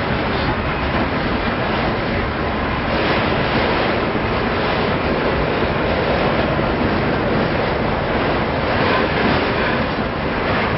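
Freight train rolling past, a string of boxcars and autorack cars making a steady rumble of steel wheels on the rails.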